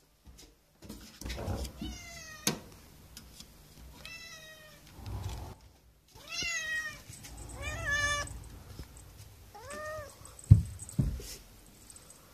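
A calico kitten meowing repeatedly in greeting: five meows about two seconds apart, each rising and then falling in pitch. A couple of low thumps come near the end.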